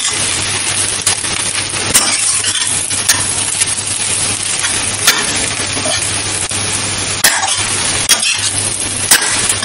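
A steel spatula scraping and clinking against a stainless-steel kadhai while potatoes and onions are stirred and fried, with a steady sizzle underneath. Sharp clinks come irregularly, every second or two.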